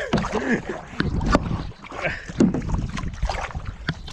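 Kayak paddles dipping and splashing in the water, with irregular knocks and clatters from the paddles and hull as the kayak is turned.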